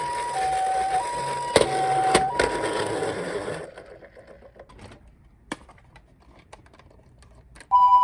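Toy ambulance's electronic hi-lo siren alternating between two tones, over a rattle with a few sharp clicks. It cuts off after about three and a half seconds, leaving faint scattered clicks, and another toy siren starts loudly just before the end.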